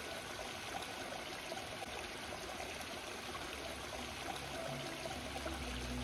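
Rainforest creek running over rock ledges and small cascades: a steady rush and trickle of water. Low background music comes in near the end.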